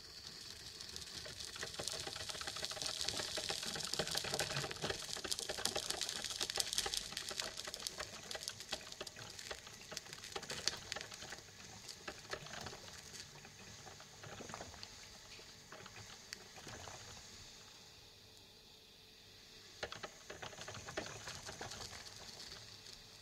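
Coffee maker brewing: hot water hissing and sputtering, with a dense crackle of small pops. It eases off about three-quarters of the way through, then picks up again.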